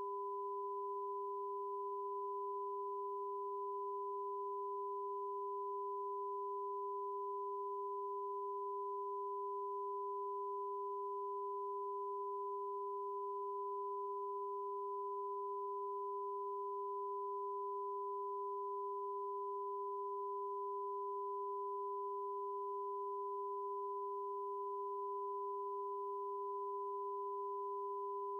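Television test-card tone: a steady low pure tone with a fainter higher tone above it, held unchanged at one level.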